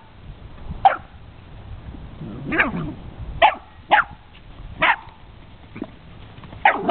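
Dog barking at a cat: a series of about seven short barks roughly a second apart, one of them drawn out.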